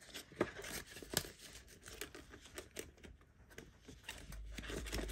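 Cash being handled and counted: irregular crinkling and rustling of plastic banknotes and the binder's envelope pockets, with several sharp clicks and snaps.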